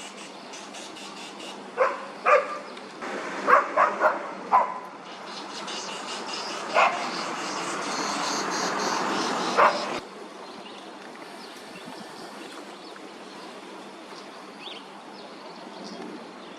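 Short, sharp animal calls, about eight in the first ten seconds, some in quick runs. Under them a rising hiss cuts off suddenly about ten seconds in, leaving a quieter steady outdoor background.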